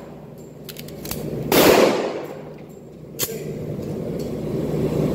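Two .45-caliber pistol shots about a second and a half apart, echoing in an indoor firing range: the first, about a second and a half in, is the loudest and rings on briefly; the second is a shorter, sharper crack.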